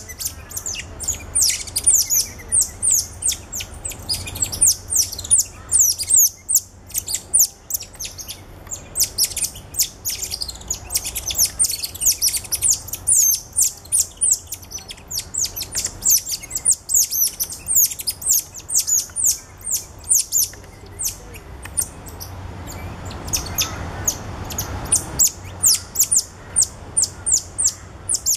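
Cotton-top tamarins chirping: a rapid stream of short, high-pitched chirps, several a second, with a few brief pauses.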